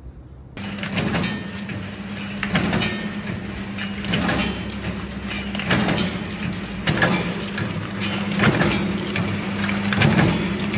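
Kadıoğlu CKK300 percussive walnut-cracking machine running: its electric motor and chain-driven flail rotor give a steady hum under a stream of irregular sharp cracks and clatter as walnut shells are broken. It comes in abruptly about half a second in.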